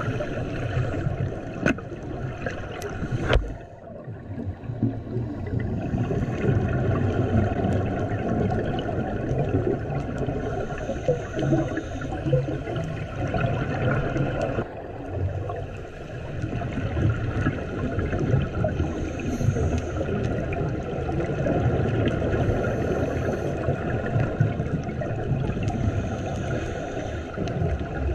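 Underwater ambience picked up through a camera housing: a steady rumble of water noise and scuba divers' exhaled regulator bubbles, with one sharp knock about three seconds in.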